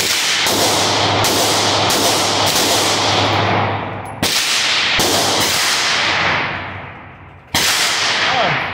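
Glock 17 pistol with a compensator firing about nine shots, each sharp crack ringing out in a long indoor-range echo. The shots come in an uneven string, the gaps growing longer toward the end, with the last one well apart. The pistol has a 15-pound recoil spring in place of the stock 17-pound one, meant to cure the jams the compensator caused.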